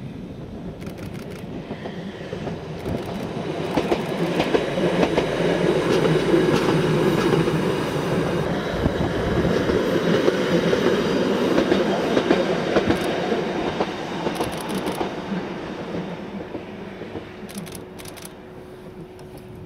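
Fukui Railway electric train passing on single track, its wheels clicking over the rail joints. It grows louder over the first few seconds, is loudest in the middle, and fades as it runs away.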